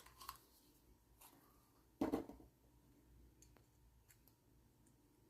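Faint handling noises of small parts: a few light clicks and one short scraping rustle about two seconds in, as a 9.5 mm size is tried against a brass pen tube.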